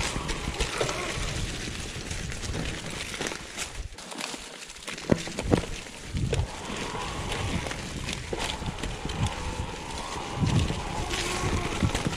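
Mountain bike rolling downhill over dirt and fallen leaves on a forest singletrack, with wind on the microphone and the bike rattling. There are several sharp knocks over bumps around five to six seconds in and again near ten seconds, and the wind noise drops briefly about four seconds in.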